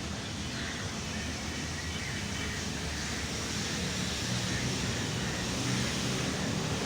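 Steady outdoor background noise: an even hiss with a low rumble underneath.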